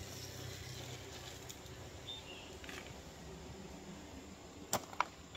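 Quiet hand-handling of a thin wire pot hanger over a low steady hum, with two sharp clicks near the end.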